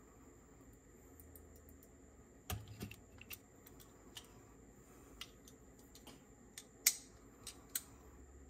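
Scattered light clicks and taps of hand tools and small metal parts of a cassette deck mechanism being handled, about a dozen at uneven intervals beginning a few seconds in, with one sharper click near the end.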